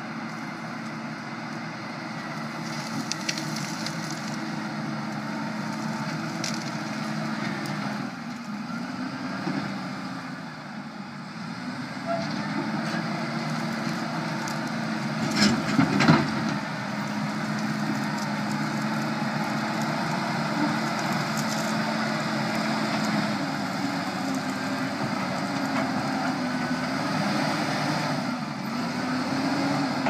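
Large wheel loader's diesel engine running under load while its brush rake pushes through scrub, the engine note dipping and rising as it works. About halfway through comes a short burst of loud cracks and knocks as a bush is broken out.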